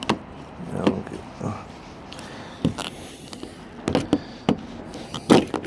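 Irregular clicks and knocks of a replacement exterior door handle being worked into a pickup's door, the loudest a sharp knock near the end.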